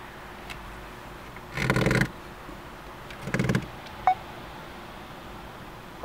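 A cellphone vibrating in its hard mount: two short buzzing rattles about a second apart, then a brief beep.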